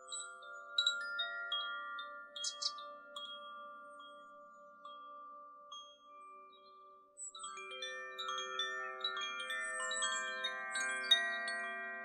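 Koshi wind chimes ringing, several long, overlapping bell-like notes that slowly fade. A fuller flurry of new notes starts a little past halfway.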